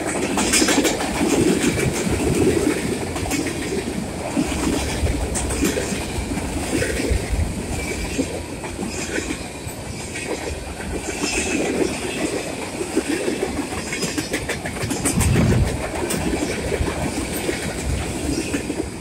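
Freight train of tank cars, covered hoppers and boxcars rolling past close by: a steady rumble of steel wheels on rail, with wheels clicking over rail joints. It begins to fade near the end as the last cars pass.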